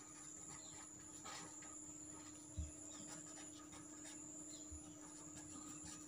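Faint scratching of a pen writing on paper, in short irregular strokes, over a steady low hum, with one soft thump about two and a half seconds in.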